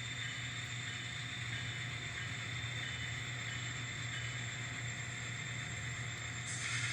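N scale model train running on the layout track: a steady motor whir and hum, with a higher whir coming in near the end.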